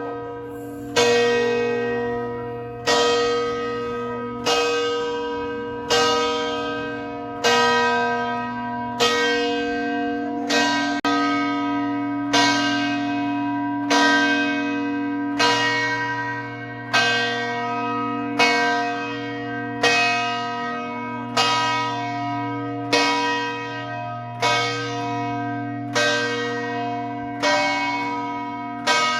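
Bells of St Mark's Campanile tolling at close range: a loud strike about every second and a half, each ringing on and fading into the next.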